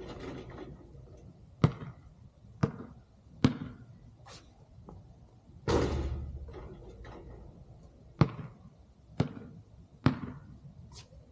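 Basketball bouncing on the court, sharp bounces roughly a second apart. A little over halfway a louder impact rings and rattles on for about a second, typical of a shot hitting the rim and backboard.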